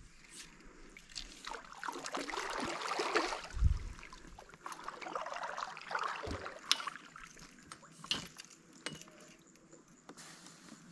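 Water sloshing and splashing close to a kayak in two irregular spells of a few seconds, with a couple of short low thumps.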